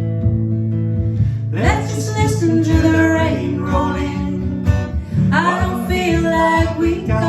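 Acoustic guitar playing a song, with a singing voice coming in about a second and a half in and again about five seconds in.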